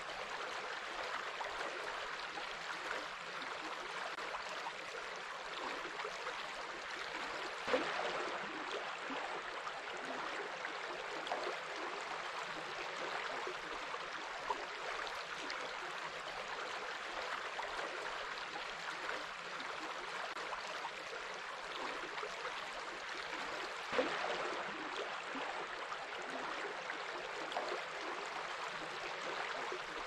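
River water flowing and rippling close to the microphone: a steady rush with small splashes and gurgles, two of them a little louder about eight and twenty-four seconds in.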